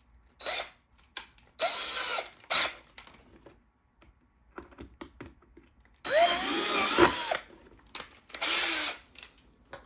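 Cordless drill boring a 4 mm hole through the thin plastic wall of a storage container in several short trigger bursts. The motor speeds up and slows down with each burst, and the longest run, over a second, comes a little past the middle.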